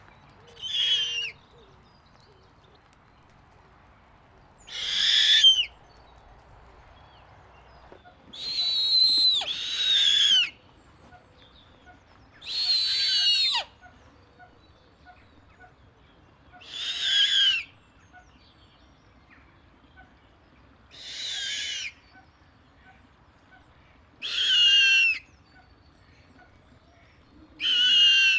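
Snowy owl screeching: short, harsh screeches about a second long, repeated roughly every four seconds, with two coming back to back about nine seconds in.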